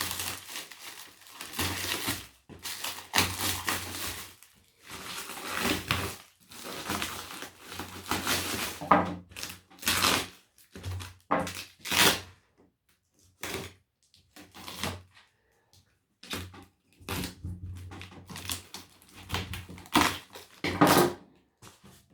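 Rustling and crinkling of packing material in a cardboard parcel as hands dig through it and handle parts, in irregular bursts with a few sharper knocks and some short pauses.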